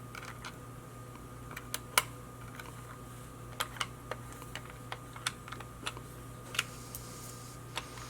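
Irregular small sharp clicks and taps of hard plastic parts from a disassembled spider-type security alarm tag being handled, the loudest about two seconds in, over a faint steady electrical hum.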